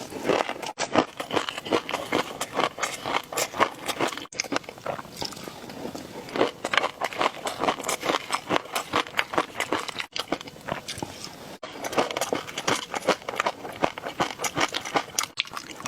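Close-miked ASMR eating sounds: biting and chewing with a dense run of wet, crackling clicks, broken by a few abrupt cuts.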